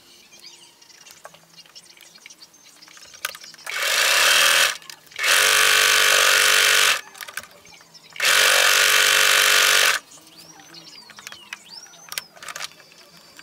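Electric domestic sewing machine stitching in three short runs of one to two seconds each, its motor and needle running at a steady speed and stopping sharply between runs.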